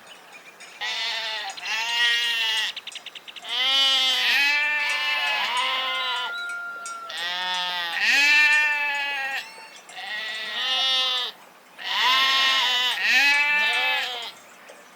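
Sheep bleating repeatedly: a string of quavering bleats in short groups, separated by brief pauses.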